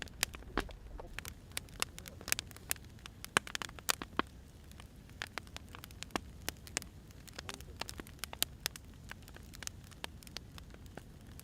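Firewood burning in a fire: irregular sharp crackles and pops, some louder than others, over a low steady rumble.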